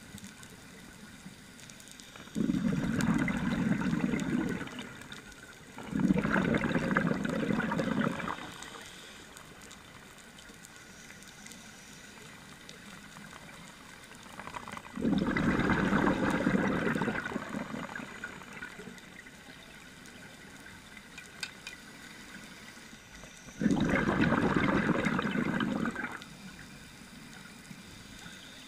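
Scuba diver exhaling through a regulator underwater: four bursts of bubbling, each about two seconds long, the first two close together, with quieter stretches between them.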